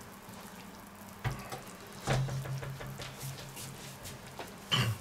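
A few sharp knocks and clatters of kitchenware being handled, over a low steady hum that pulses about four times a second.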